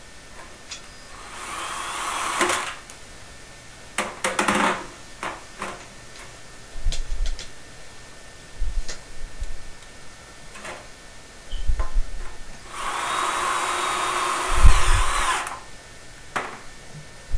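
Screw gun driving self-tapping sheet-metal screws into flue pipe: two long runs of the motor, one about a second in and one near the end, and a shorter run about four seconds in. Low knocks and clicks from handling the pipe come between the runs.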